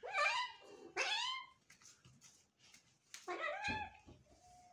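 Young cat with a broken hind leg meowing loudly three times while the leg is being bandaged into a cast, calls of protest or distress at being handled.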